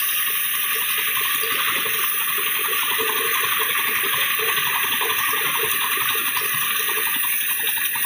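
Small paddy thresher at work: rice sheaves fed against its spinning wire-toothed drum, giving a steady rushing hiss with a dense rattle of grain and straw.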